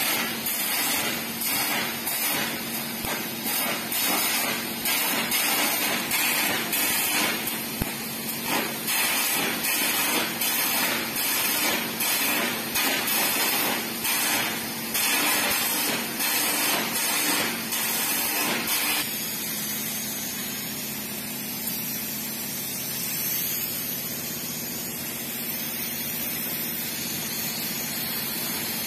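Carbon arc air gouging: the carbon electrode's arc crackles and sputters under the compressed-air blast for about 19 seconds. Then the arc stops and a steady hiss of air carries on.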